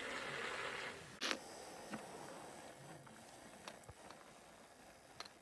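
Quiet hiss with a few faint, brief clicks and taps spread through it, the clearest about a second in.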